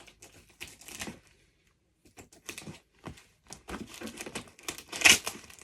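A parcel's packaging being worked open by hand: irregular crinkling, scratching and small ticks, with a brief pause about a third of the way in and a louder rustle near the end.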